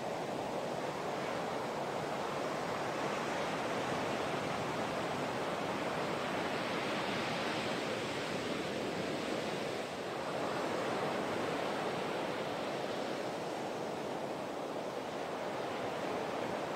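Heavy shorebreak waves breaking and washing up the beach, a steady rushing surf noise that swells and eases slightly as sets come through.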